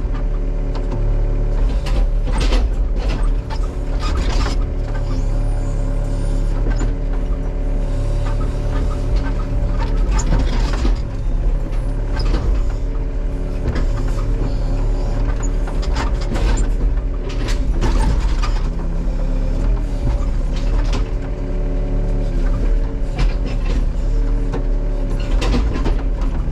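Excavator's diesel engine running steadily under load as the machine tears at tree roots, its pitch dipping now and then as the hydraulics take strain. Scattered sharp cracks and knocks of roots, wood and the bucket come through over it.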